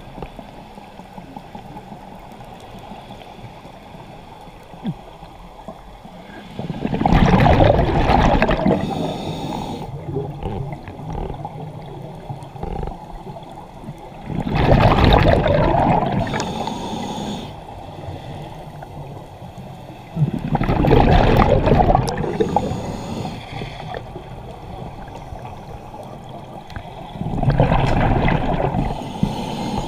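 Scuba regulator exhaust bubbles heard underwater: the diver exhales four times, each a loud gurgling rush of bubbles lasting about two seconds, about every six to seven seconds. A quieter watery hiss fills the gaps between breaths.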